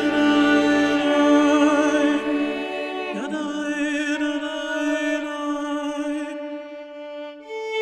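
Slow background music of long held notes with vibrato. The lower notes drop out about a third of the way in, and it grows quieter near the end.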